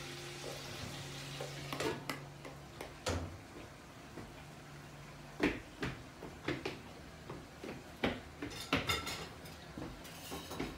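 Scattered light clicks and knocks of plastic cups being handled and set down on a wooden table, with a low steady hum through the first half.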